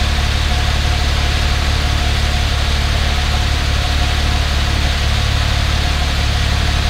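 2012 Cadillac SRX's 3.6-litre V6 idling steadily through its stock dual exhaust, heard at the tailpipes: an even, low rumble that is mostly engine with little exhaust note.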